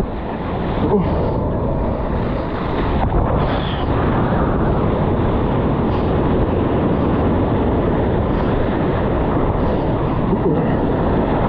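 Steady rumble of wind buffeting a POV camera's microphone out on the water.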